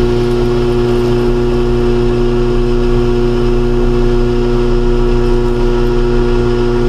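Electric pottery wheel spinning, its motor giving a steady hum.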